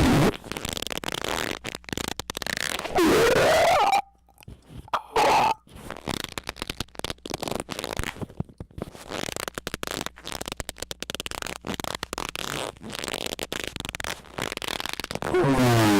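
Heavily distorted, clipped squeaking sounds: squeals that glide in pitch about three seconds in, again about five seconds in, and a falling squeal near the end, with choppy crackling noise in between.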